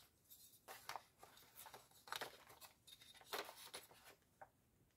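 Faint rustling and scraping of a ruler being moved and laid across a cardstock album page, in short irregular strokes.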